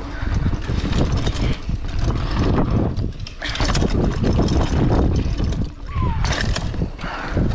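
Mountain bike riding fast down a dirt trail: wind buffeting the microphone, tyres on dirt, and the bike rattling and knocking over bumps. A brief falling squeak about six seconds in.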